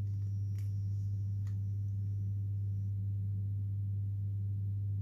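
A steady, low electrical hum on one pitch, with two faint clicks in the first couple of seconds.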